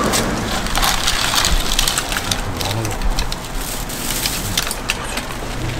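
Hot oil sizzling steadily with many small crackles, food deep-frying.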